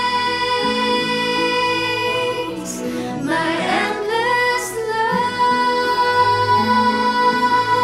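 Women singing a slow worship song over soft instrumental backing, holding long notes, with a run of sliding notes about three seconds in.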